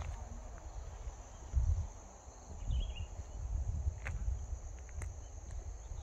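Footsteps on a gravel path: soft low thuds every second or so, with a few light crunches. Under them runs a steady high insect drone, and a single short chirp sounds about halfway through.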